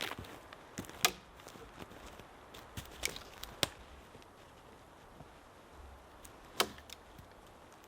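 A few scattered sharp snaps and clicks over a faint background hiss, like someone moving about and handling things on a dry forest floor; the loudest come about a second in and again near the end.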